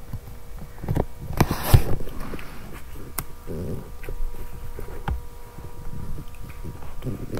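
Handling noise from a doll styling head moved close to the microphone: scattered soft knocks and clicks with rustling, over a faint steady hum.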